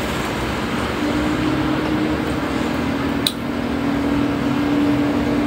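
Steady rushing noise of a running cooling fan, with a low hum coming in about a second in. A single sharp click sounds just past the middle.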